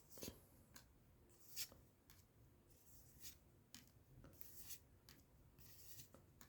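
Faint rustling and scraping of a trading-card booster pack and its cards being handled, in a series of short soft strokes.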